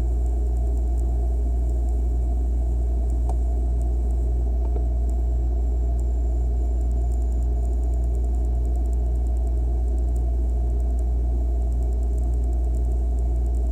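Refrigerator hum heard from inside the fridge: a steady low drone with a faint, regular pulsing just above it.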